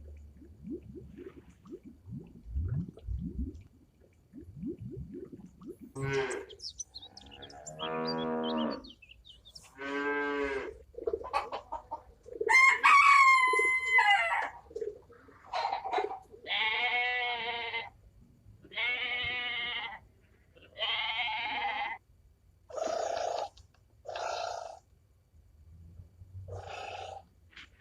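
Bleating farm animals: a series of about a dozen pitched calls, each about a second long, starting some six seconds in, with one longer, louder, higher call around the middle.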